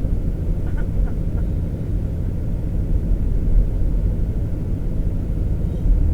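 Steady low rumble of a truck's engine and tyres, heard from inside the cab while driving on snow-covered road.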